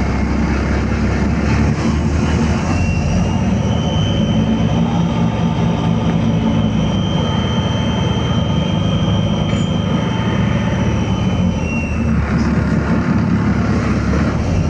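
Steady engine and road rumble heard from inside a moving bus, with a thin high whine held for most of the middle that drops away near the end.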